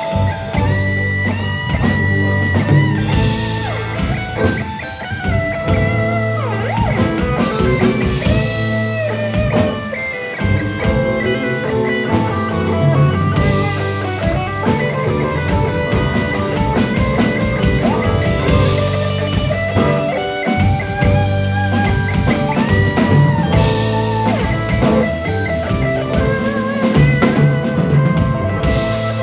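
Electric guitar, a Stratocaster-style solid-body, playing a lead solo with bent, sustained notes over a live band's slow blues backing with bass and a steady beat.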